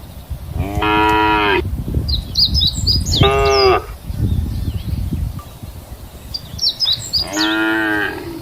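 Cows mooing: three calls of under a second each, about a second in, in the middle and near the end. Small birds chirp between the calls.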